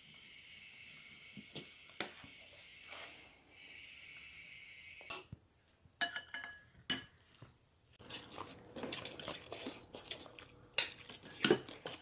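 Kitchen dishes and metal utensils clinking and clattering, with two sharp ringing clinks about halfway through and busier clatter near the end. A faint steady hiss is heard in the first few seconds.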